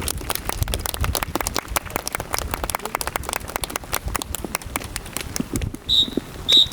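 Rapid, irregular clatter of sharp claps and knocks from a rifle drill team's routine, breaking off about six seconds in. Two short, loud, high whistle blasts follow near the end, a drill command signal.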